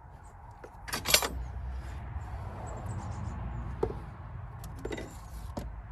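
Small metal clinks and rattles of hand tools and parts in a car's engine bay while fishing for a dropped nut, over a low steady rumble. A loud cluster of clinks comes about a second in, then a few lighter single clicks.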